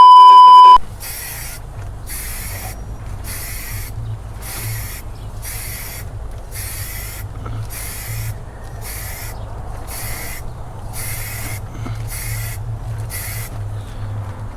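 A loud single-tone beep lasting under a second, then an aerosol spray-paint can spraying in short, even bursts, about fifteen hisses at a little over one a second, stopping shortly before the end. A steady low hum runs underneath.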